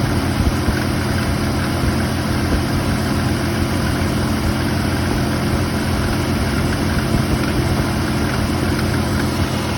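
1990 Suzuki Samurai's stock 1.3-litre four-cylinder engine idling steadily.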